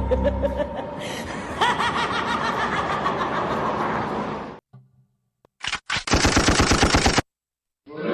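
Canned sound effects played from a live-streaming sound card: a laughter clip over a backing sound for the first four and a half seconds, then after a short gap a quick burst of machine-gun fire, about ten shots a second.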